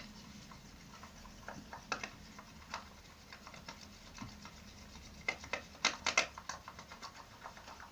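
Scattered small clicks and scrapes from working a bowl of homemade shampoo-and-borax slime mixture, with a quick cluster of louder clicks about five to six seconds in.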